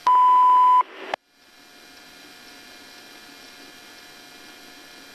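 Police radio transmission: a single loud, steady high beep lasting under a second, then a click and a few seconds of open-channel radio hiss.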